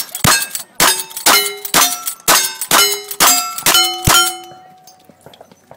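Cowboy action shooting: a rapid string of about ten gunshots, roughly two a second, each answered by the ringing clang of a struck steel target, the plates ringing at different pitches. The string stops about four seconds in.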